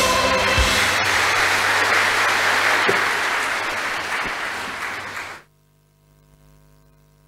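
Audience applauding as the choir's final chord rings out in the first second; the applause slowly dies down and cuts off suddenly about five seconds in, leaving only a faint hum.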